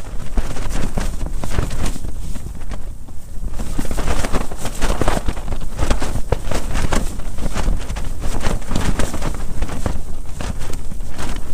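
Gusty wind buffeting an ice-fishing tent: a heavy wind rumble on the microphone, with the tent fabric rattling and flapping in quick irregular snaps.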